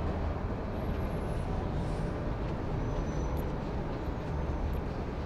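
Steady low rumble of outdoor background noise, with a couple of faint high ticks near the middle.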